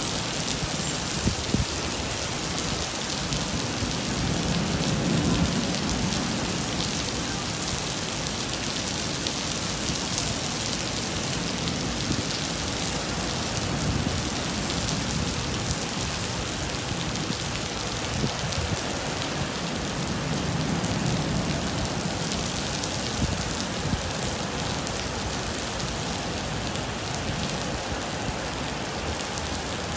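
Heavy downpour: a steady hiss of rain falling on pavement and road, with small sharp drop hits here and there. A low rumble swells up twice.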